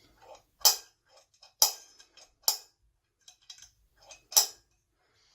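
Clicks and light knocks from an HD8 SU carburettor's choke lever and brass actuator shaft being worked by hand, the shaft pulled down and let back: four sharper clicks at uneven spacing with fainter ticks between.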